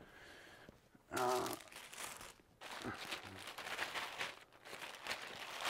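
Thin plastic packaging crinkling and rustling as a folded jersey in a clear poly bag is picked up and handled, with a short sound from a man's voice about a second in.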